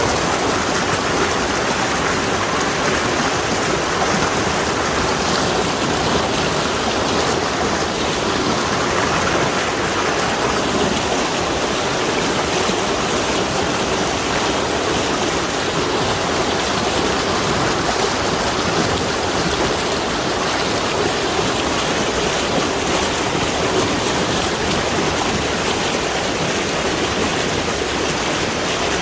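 Mountain valley stream flowing: a steady, unbroken rush of water.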